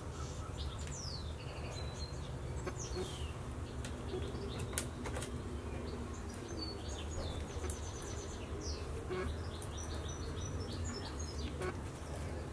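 Small birds chirping repeatedly with short, quick falling calls, over a steady low rumble, with a single sharp click about five seconds in.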